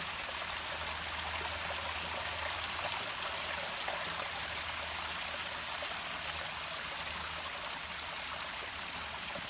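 Water running steadily down a flight of stone steps, spilling over each step edge.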